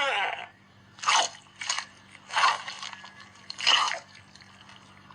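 Cartoon sound effects: a pitched call gliding down and ending at the start, then four short crunching sounds spaced irregularly over the next three seconds.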